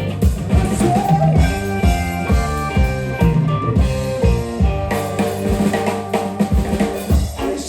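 Live band playing an instrumental passage: drum kit keeping a steady beat over a bass line and held notes from pitched instruments, with the drums easing off for about a second midway before coming back in.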